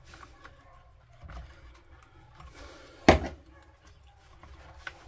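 Quiet handling of a small spanner working a tight carburettor mounting nut on a petrol strimmer, with a few small clicks and one sharp knock about three seconds in.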